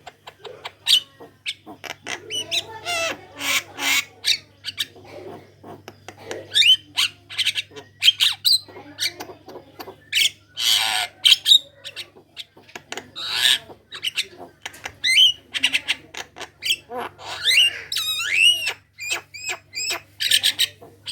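Javan myna chattering and singing nonstop: a varied run of harsh squawks, clicks and gliding whistles, with a faint steady low hum underneath.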